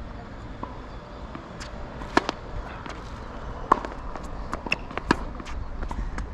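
Tennis balls struck by rackets and bouncing on the court, sharp pops roughly a second apart, the loudest about a third of the way through, over the steady low rumble of strong wind on the microphone.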